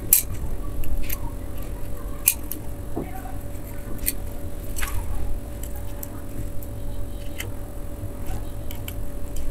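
Small clicks and taps of a precision screwdriver and tiny screws as a metal amplifier-board case is screwed together, over a steady low hum.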